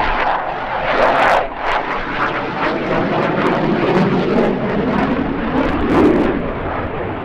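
Eurofighter Typhoon fighter jet's twin EJ200 turbofans at high power: a loud, steady rumble with a few sharp crackles.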